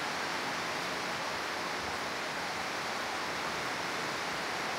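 Steady rain, an even hiss that does not change.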